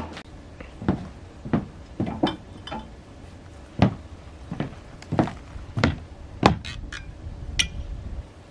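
Cowboy boots stepping on wooden boards: about a dozen sharp, uneven knocks.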